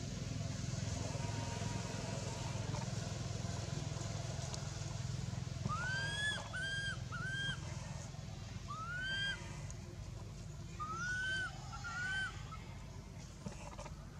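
Infant long-tailed macaque crying: about six short coos, each rising then falling in pitch, three in quick succession about six seconds in, then one more and a final pair, over a steady low rumble.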